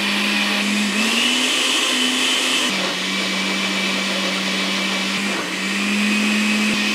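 Electric countertop blender with a glass jar running, grinding onion, ginger, garlic, green chillies, coriander and mint with a little water into a fine paste. The motor's hum steps up in pitch about a second in, drops back, and rises again near the end.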